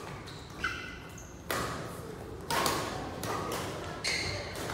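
Badminton rackets hitting a shuttlecock about once a second, sharp cracks that echo in a large sports hall, with a few short squeaks in between.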